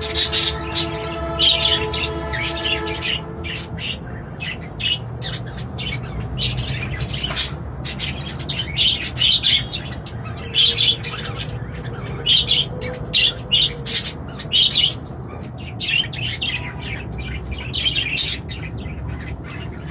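Pet parrots chirping and squawking in short, loud, high-pitched calls, repeated in bunches throughout. A steady chord of several tones holds underneath for the first few seconds, then stops.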